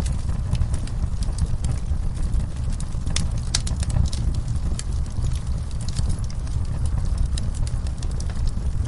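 Wood fire burning in a fireplace: a steady low rumble from the flames with frequent, irregular sharp crackles and pops from the burning logs.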